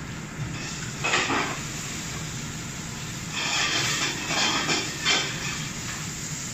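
Commercial kitchen cooking noise: a steady low hum from the gas range, with bursts of hissing and metal clatter about a second in and again from about three to five seconds in.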